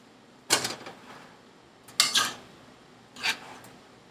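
Three short scrapes of a utensil against a pot of rice, about a second apart.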